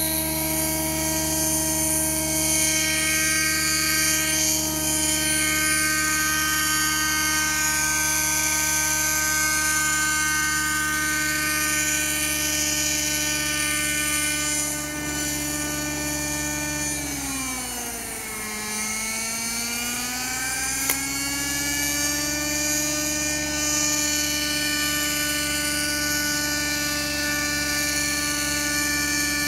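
Thunder Tiger Raptor 50 V2 nitro RC helicopter hovering, its glow engine and rotors making a steady high whine. About 17 s in the pitch sags for a second or two, then climbs back to the hover pitch.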